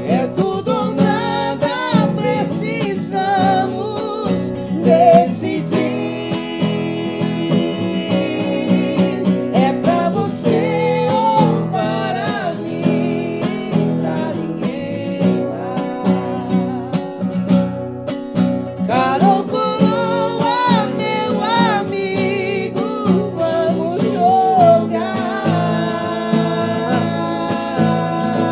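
Acoustic guitar strummed and picked under men singing a slow sertanejo ballad (modão), the two voices joining in harmony.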